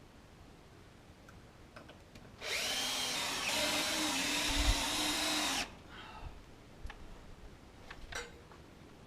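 Power drill running steadily for about three seconds, starting a couple of seconds in, as if driving a screw into siding boards; a few light clicks follow.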